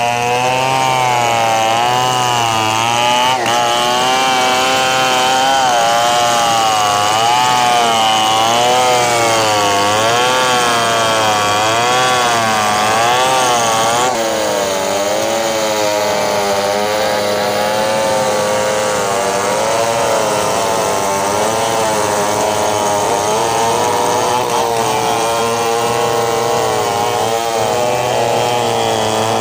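Large two-stroke chainsaw at full throttle ripping lengthwise through a huge bengkirai hardwood log, its engine pitch wavering up and down as the chain loads and frees in the cut.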